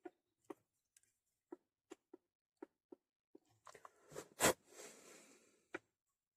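Small, light ticks and clicks of hand work at a fly-tying bench, about two a second. About four seconds in comes a louder sharp click followed by a short rustle, then one more tick near the end.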